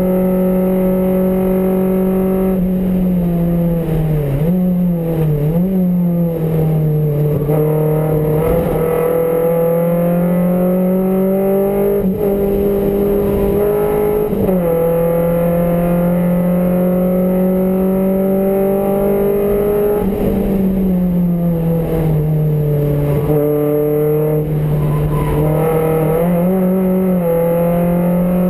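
MG Metro race car's four-cylinder engine at high revs, heard from inside the cabin. Its pitch climbs slowly and steadily under acceleration and falls abruptly a few times.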